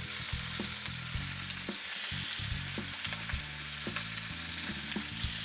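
Chaya leaves and stems sizzling as they stir-fry in a wok, a steady hiss with a dozen or so short clicks of the spatula against the pan. A low hum runs underneath.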